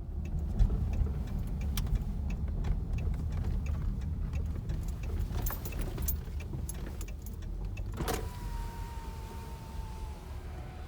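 Low rumble of a car driving, with scattered clicks and rattles. About eight seconds in there is a sharp click, followed by a faint steady tone that slowly drops in pitch for about two seconds.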